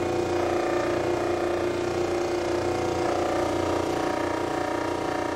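Disc sander running steadily with a constant motor hum while the edge of a wooden band saw wheel, pivoted on a centre pin, is turned against the disc and sanded, truing the wheel round.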